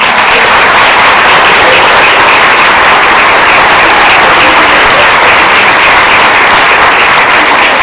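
Audience applauding loudly, the clapping starting suddenly and holding steady throughout.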